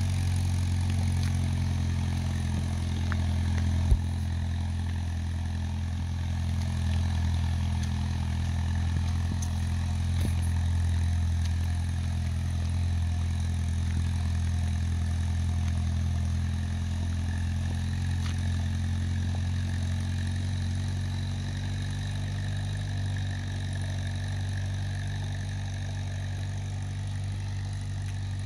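A 1940s Farmall Cub tractor's four-cylinder flathead engine running at a steady speed as the tractor drives along, with one sharp knock about four seconds in.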